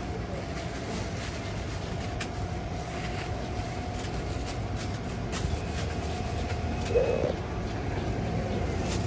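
Plastic film and a plastic bag handled at a food stall: faint crinkles and clicks over a steady low background rumble and a faint steady hum, with a short low sound about seven seconds in.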